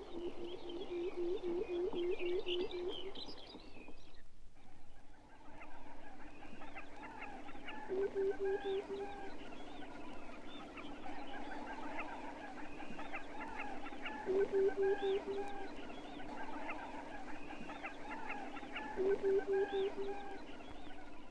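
Pectoral sandpiper male giving its display hooting: a quick series of low, hollow hoots, repeated four times, over a steady low drone and a scatter of higher chirping calls.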